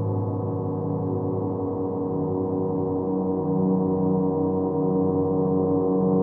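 Ambient background music of sustained, ringing gong-like drone tones layered over one another, with the low notes shifting about halfway through.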